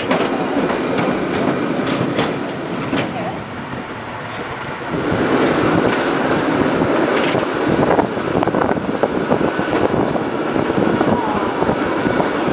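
San Francisco cable car rolling along its track: a continuous rattling rumble of steel wheels on rail. It eases off for a moment about four seconds in, then grows louder again, with a few sharp clacks along the way.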